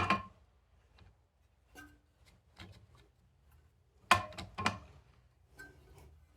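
Metal knocks and light ticks as a clutch pressure plate is set onto the flywheel and its bolts are started by hand. There is a sharp knock at the start, a few faint ticks, then two louder knocks about four seconds in.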